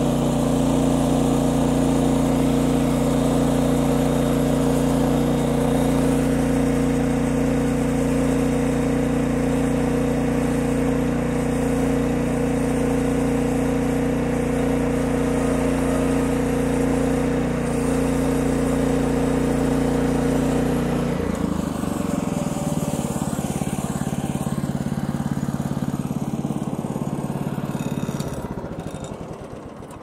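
Engine of a Norwood LumberMate LM29 portable bandsaw mill running steadily at cutting speed while the band blade saws along a beetle-kill pine cant. About 21 seconds in the engine's tone changes, and the sound fades out near the end.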